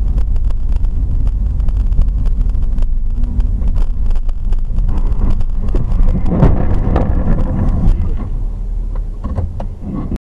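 Vehicle road noise: a steady low rumble with wind on the microphone and scattered small clicks, swelling briefly a little past the middle.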